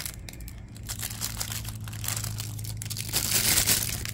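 Clear plastic packaging bag crinkling as it is handled, louder and busier about three seconds in.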